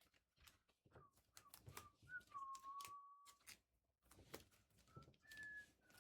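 Faint whistling: a few short notes and one note held about a second, with small clicks from handling in between.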